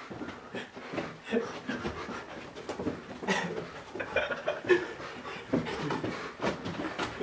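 Hard panting and breathing of people running, with scattered short thumps and scuffs.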